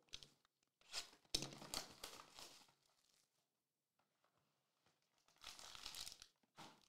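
Plastic and foil wrapping of a sealed Topps Tier One trading-card box crinkling and tearing as it is unwrapped and its pack pulled out. There are two stretches of rustling, with a sharp crackle about a second and a half in.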